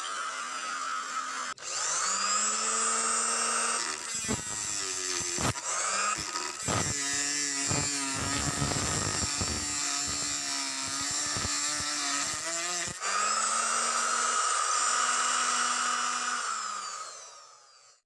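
Homemade circular saw driven by a blender motor: the motor whines, spins up, and its pitch dips and jumps with many scraping hits while the blade cuts through a workpiece in the middle. Toward the end it runs freely again, then winds down and fades out.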